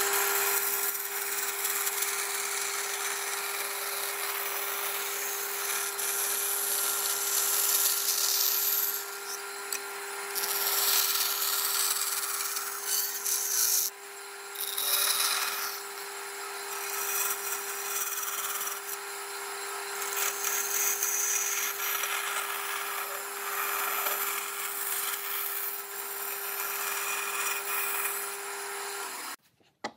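Band saw running with a steady hum while its blade cuts curves through a pine board, the cutting noise swelling and dipping as the wood is fed and turned. It cuts off suddenly near the end.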